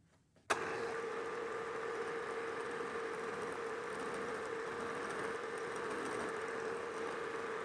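Milling machine running, its spindle turning a ball end mill that is lightly touching the tip of a hardened screwdriver bit to form a radius. The sound starts suddenly about half a second in and then holds as a steady hum with one constant tone.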